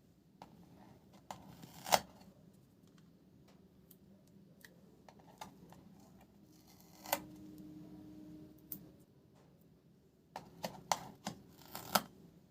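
Sharp clicks and taps from hands working on a laptop's parts: a loud snap about two seconds in, another around seven seconds, and a quick run of clicks near the end.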